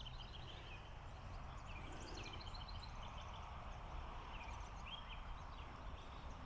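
Faint outdoor ambience: a steady low rumble with scattered short bird chirps and trills, clustered around two to three seconds in and again near five seconds in.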